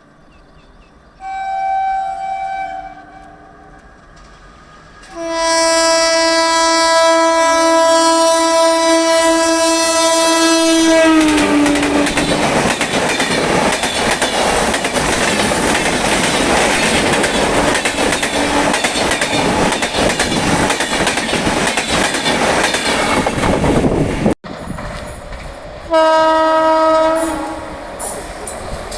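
Indian Railways train horns sounding twin-tone: a short blast about a second in, then a long horn from about five seconds that drops in pitch as the train passes at speed. The loud rush and clatter of the train going by follows, and after a cut another short horn blast comes near the end.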